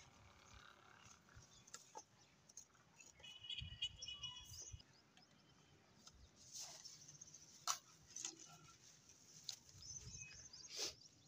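Near silence outdoors, broken by faint scattered clicks and light rustles, with a short high chirping call from a bird about three to four seconds in.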